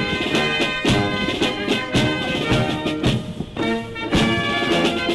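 Brass band playing a march, with a strong drum beat about once a second under the brass.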